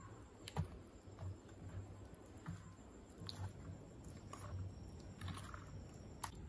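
Steel ladle stirring thick, wet rice-and-bottle-gourd batter in a stainless steel bowl: faint squelching with a few light clicks of the ladle against the bowl.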